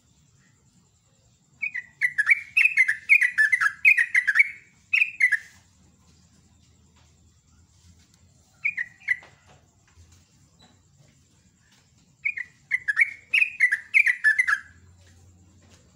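Yellow-vented bulbul singing loud bubbly phrases of quick, chattering notes: a long phrase, a short burst, then another long phrase, with pauses between.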